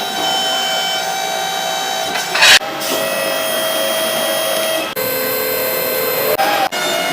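Power tool running with a steady whine, its pitch and tone changing abruptly about two and a half and five seconds in.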